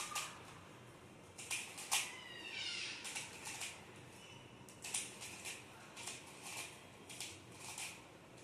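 Skewb puzzle being turned by hand: its plastic pieces click with each twist, in irregular clusters of sharp clicks.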